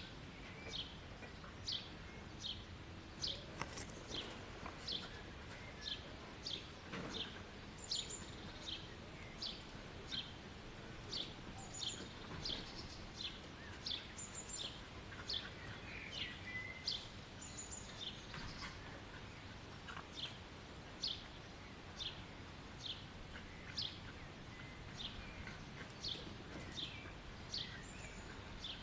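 A songbird calling with a steady run of short, sharp chirps, about one and a half a second, over faint outdoor background noise.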